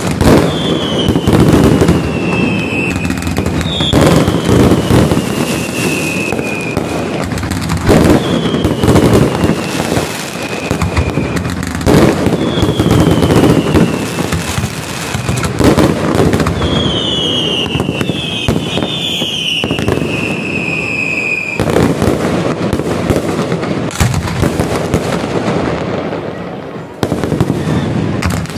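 Aerial fireworks display: a dense, continuous run of shell bursts, bangs and crackling. Whistles that fall in pitch sound about every few seconds during the first two-thirds.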